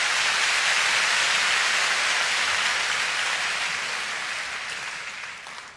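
Audience applauding, a dense, steady clapping that slowly fades away near the end.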